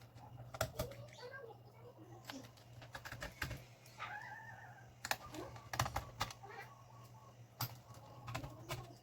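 Irregular sharp clicks and taps of small plastic and metal laptop parts and tools being handled during reassembly, over a steady low hum.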